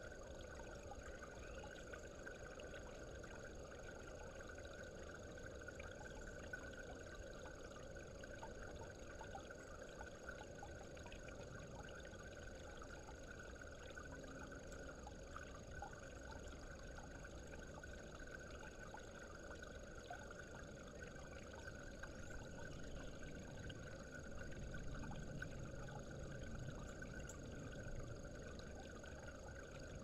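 Faint, steady hum mixed with a light wash of water from the garden pond, getting slightly louder with a low rumble in the last several seconds.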